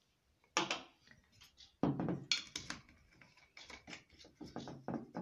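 Knocks and clinks of cocktail tools and bottles handled on a wooden table: a metal jigger and stainless steel shaker tin. There are sharp knocks about half a second in and again around two seconds in, then a run of lighter clicks.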